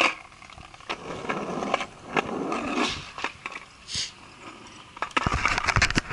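Camera handling noise: the microphone rubbing against hoodie fabric, with irregular rustling, clicks and scrapes. It gets louder and busier about five seconds in.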